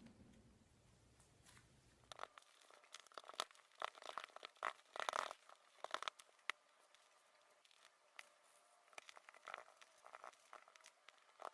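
Slime being squeezed and poked by hand, giving quick crackles, clicks and small pops. They come thickest from about two and a half to six and a half seconds in, then thin out to scattered clicks.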